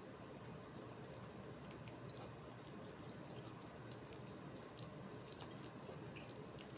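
Quiet chewing, with scattered small crackles as crispy fried chicken is picked apart by hand.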